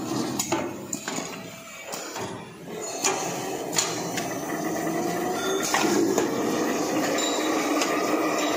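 Automatic tube tape-wrapping machine running, with scattered sharp clicks and knocks from its mechanism. Its steady running noise grows louder about three seconds in.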